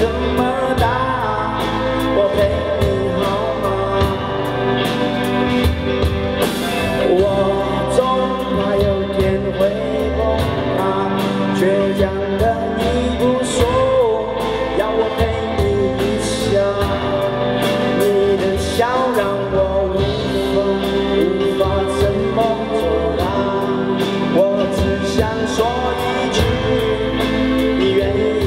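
Live band playing a song: a male vocalist singing over drum kit, bass guitar and electric guitar, with a steady drum beat.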